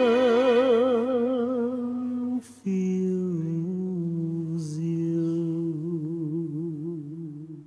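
Slow outro music: one melodic line of long held notes with wide vibrato. It breaks off about two and a half seconds in, comes back on a lower note that slides down, and fades out at the end, with two brief high swishes along the way.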